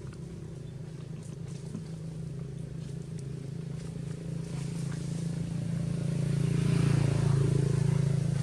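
A steady engine hum that swells to its loudest near the end.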